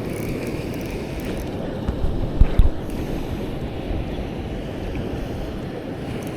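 Steady rushing noise of flowing stream water mixed with wind on the microphone, with a few low thumps about two and a half seconds in.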